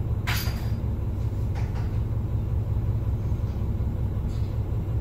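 Cummins ISM inline-six diesel of a Neoplan AN440 transit bus idling, a steady low rumble heard from inside the passenger cabin, with a brief hiss about a third of a second in.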